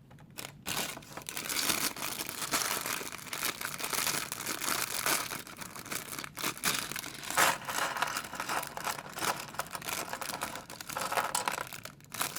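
Plastic bag of Lego pieces crinkling and rustling as it is handled and opened, with irregular crackles throughout.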